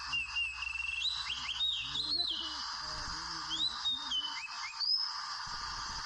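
Oriental magpie-robin singing: a varied run of clear whistled notes that rise, hold and drop, pausing briefly midway and then resuming, over a steady background hiss.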